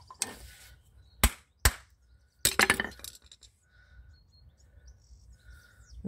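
Sharp metallic clicks and clinks from brake pads and hand tools being handled: a few single clicks in the first two seconds, then a brief clattering rattle about two and a half seconds in.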